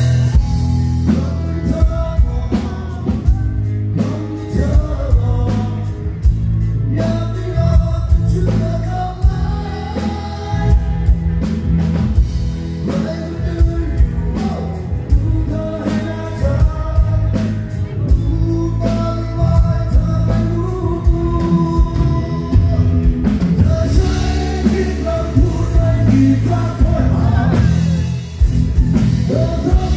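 A male singer performing a Thai rock song live with a full band: drum kit, bass and electric guitars, loud through the stage PA.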